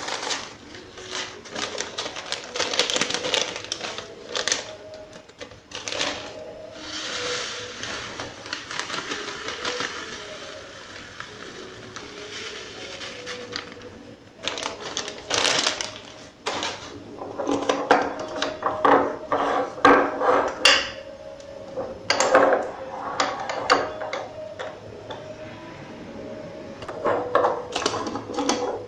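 Clear plastic bag crinkling and dry seeds pouring into a glass jar, with clicks and knocks of glass jars handled on a stone counter. The sound comes as a run of rustling with many sharp clicks, densest in the second half.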